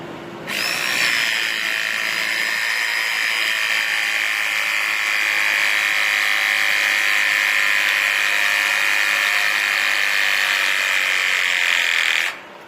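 Powered pipe press tool running through a press cycle on a double-ring pipe joint. It gives a steady high whine that starts about half a second in and cuts off sharply near the end, about twelve seconds later.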